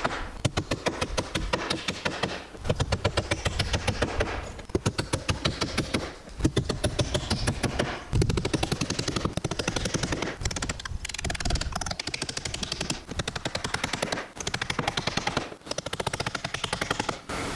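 Power driver fastening the wall brace: about eight bursts of rapid mechanical hammering, each a second or two long, with short pauses between them as each fastener is driven home.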